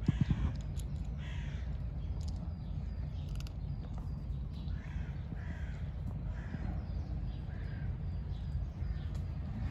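Crows cawing, a series of short harsh calls a second or so apart, over a steady low background rumble, with a brief thump right at the start.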